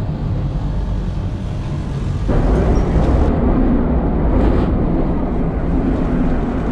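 Metro train running at speed, heard from inside the carriage: a steady low rumble of wheels and running gear. It turns abruptly louder and harsher about two seconds in.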